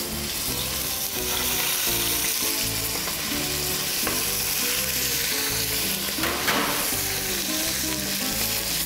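Skin-on chicken pieces sizzling steadily as they are laid skin side down in shimmering hot oil in a saucepan, searing.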